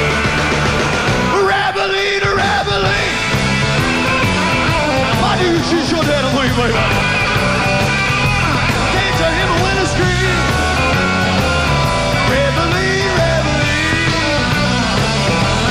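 Live rock band music: a steady, repeating bass line with bending melodic lines above it.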